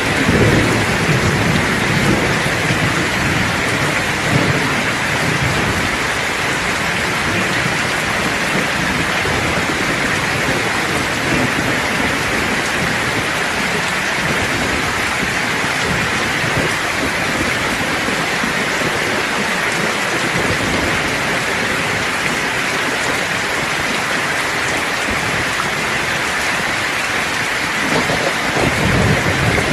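Steady heavy rain hissing, with low rolls of thunder rumbling in the first few seconds and again near the end.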